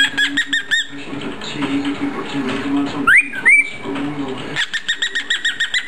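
Cockatiel chirping in quick runs of about five to six chirps a second, with a loud rising whistle that levels off into a short held note about halfway through.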